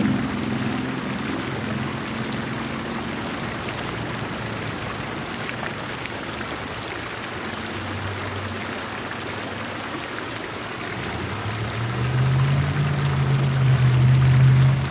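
Fountain jets splashing and spattering steadily into the basin. A vehicle engine hums low in the background, growing louder over the last few seconds.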